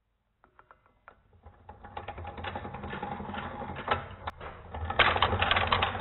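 Rotary telephone dial being wound up to the 4 and let go, its mechanism clicking and whirring, with a Strowger step-by-step selector clattering as its wipers step up to the fourth level. The clicking grows louder and denser from about five seconds in.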